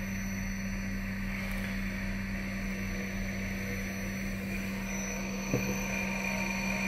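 Steady hum of a powered-up desktop 5-axis CNC milling machine setup: a low drone with thin high-pitched whines over it. There is a single light tap about halfway through.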